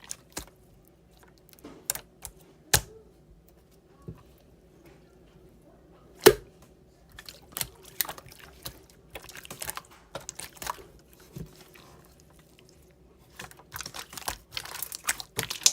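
Irregular sharp clicks and taps, one much louder about six seconds in, growing into a busier run of tapping near the end, over a faint steady room hum.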